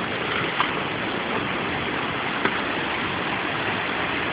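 River rapids running high, fast water rushing over boulders in a steady hiss. Two brief sharp knocks, about half a second and two and a half seconds in.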